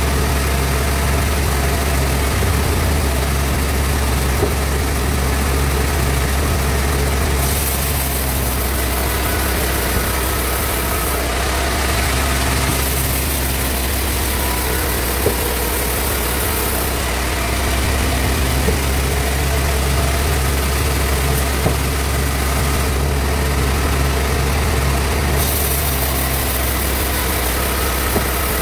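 Sawmill bandsaw running steadily with a low hum. A higher hiss comes in three times for a few seconds each.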